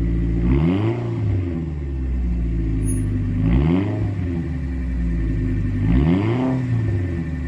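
Toyota AE86 Corolla Levin's 1.6-litre twin-cam 4A-GE inline-four idling, blipped three times: each rev rises quickly and drops back to idle.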